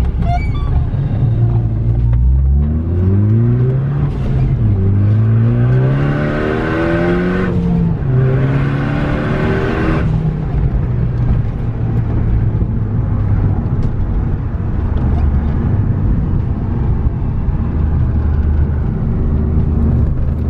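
MK3 Ford Focus ST's hybrid-turbocharged four-cylinder engine accelerating hard through the gears: its pitch climbs three times in a row, dropping back at each shift, with a loud rushing hiss on the later pulls. It then settles into a steady cruise.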